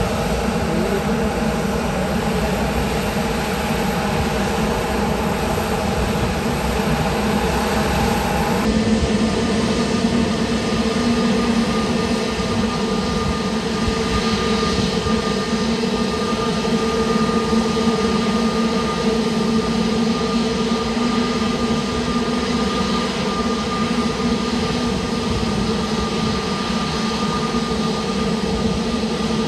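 Jet airliner engines running steadily, with several held tones over a rushing noise; the tones shift abruptly about nine seconds in.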